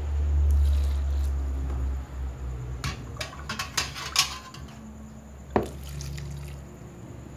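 Warm coconut milk poured from a glass onto glutinous rice flour and grated coconut in a plastic tub, loudest in the first two seconds, followed by a run of sharp clicks and knocks from the glass and tub.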